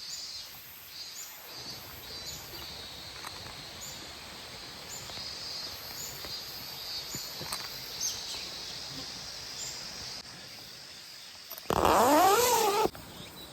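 Outdoor ambience: steady high chirping with small repeated chirps, then near the end a loud cry, about a second long, whose pitch wavers up and down.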